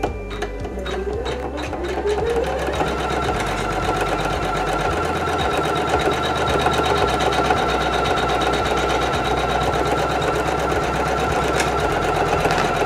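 Janome 500E embroidery machine starting a stitch-out. Its motor whine rises in pitch over the first couple of seconds as it speeds up, then settles into a steady, fast run of stitching.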